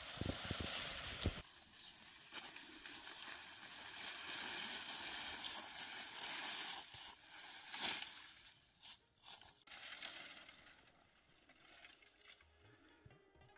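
Dry branches dragged over dry grass and fallen leaves, a steady rustling scrape, with wind buffeting the microphone at first. There are a few sharp cracks of dry wood about halfway through, then it goes quieter.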